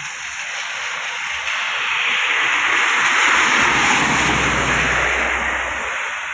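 A minibus passing close on a flooded, rain-wet road: the hiss of its tyres through the water swells to a peak, with a low engine rumble, then fades away. Rain falling throughout.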